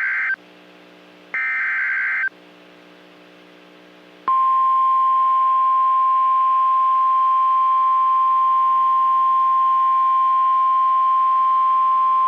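NOAA Weather Radio alert signal: the last two bursts of the SAME digital header, short buzzy data screeches about a second long and a second apart, then after a pause the steady 1050 Hz warning alarm tone starts about four seconds in and holds. The sequence marks the start of a new warning broadcast.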